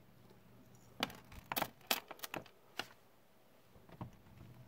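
A metal Vostok pocket watch and its chain clicking and rattling against a hard surface as they are handled and set down: a quick run of sharp clicks starting about a second in, and one more near the end.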